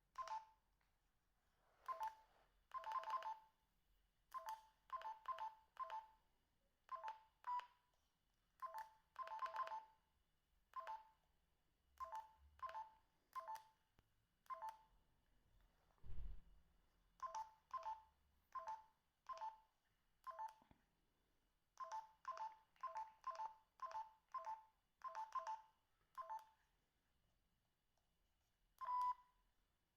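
Binatone BB200 mobile phone's keypad beeping as its buttons are pressed to scroll through the menus: dozens of short beeps at irregular spacing, some in quick runs, with a low thump about halfway through and a slightly longer beep near the end.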